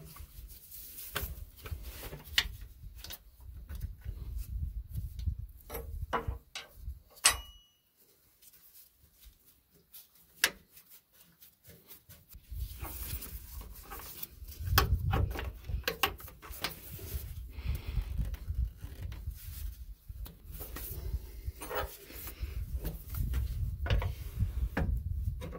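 Irregular clicks, taps and rubbing as air brake lines and fittings are handled and reconnected on a truck's air valve, over a low rumble. There is a short squeak about seven seconds in and a quieter stretch after it.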